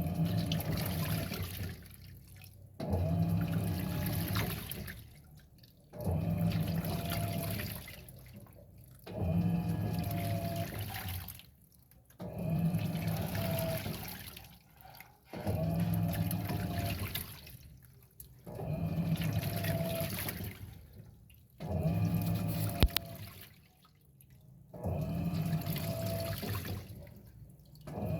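Electrolux 6 kg washing machine agitating a load of towels in water. The motor runs in strokes about every three seconds, each a hum with a faint whine over sloshing water, fading away between strokes.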